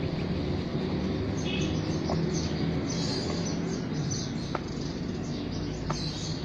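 Birds chirping in short, repeated high notes over a steady low background hum.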